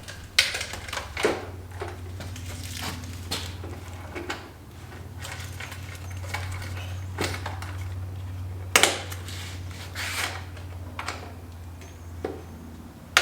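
Steel sawmill parts clanking and knocking together as they are handled and fitted during assembly: a handful of sharp metal knocks spread a few seconds apart, the loudest about a second in and near nine seconds in, over a steady low hum.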